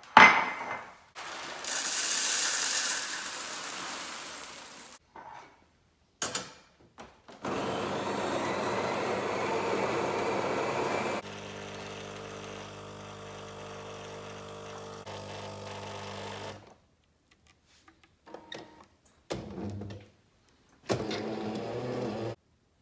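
Jura ENA 5 bean-to-cup coffee machine brewing a cup in a few short cuts: whirring runs of the grinder and brew unit, then a steady hum from the pump as coffee pours into the mug. A sharp click right at the start.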